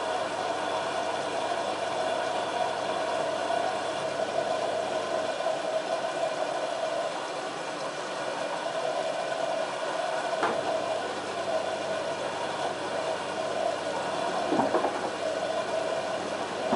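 LG F1443 washing machine running its wash phase: a steady motor hum as the drum turns, with a few short knocks about ten and fifteen seconds in.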